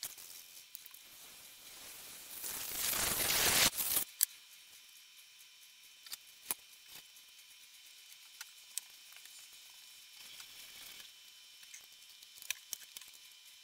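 Gillette shaving cream aerosol can spraying foam in one long hiss that grows louder and cuts off about four seconds in. After that come scattered light taps and soft rubbing as the foam is spread flat.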